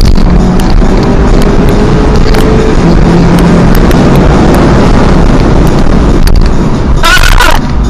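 Car engine and road noise heard loud from inside the cabin at speed, with a short burst of hiss about seven seconds in.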